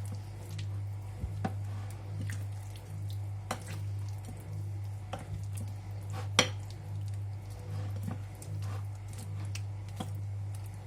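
Scattered clinks and light knocks against a bowl as chicken wings are mixed into a wet marinade of milk and yogurt, the sharpest clink a little past halfway, over a steady low hum.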